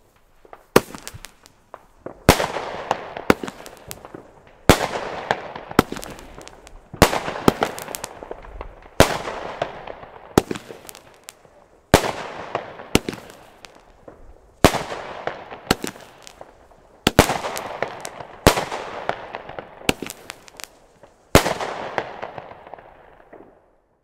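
A small Pyroland King Brudi nine-shot consumer firework battery (cake) firing. There are about nine shots every two to three seconds, each a sharp bang followed by a fading crackle from the burst.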